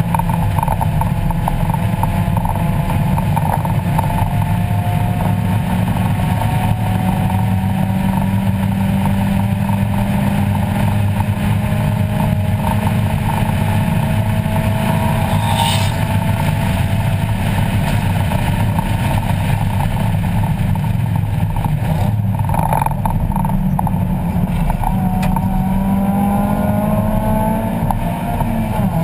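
1994 Mazda Miata race car's 1.8-litre four-cylinder engine heard from inside the cabin, pulling hard with its pitch climbing slowly as the car accelerates. About three-quarters of the way through the note breaks briefly, then climbs again.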